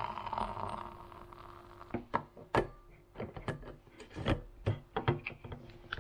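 A continuous sound fades out within the first second or so. Then come irregular sharp knocks and clicks, about a dozen in four seconds, like handling objects or a door.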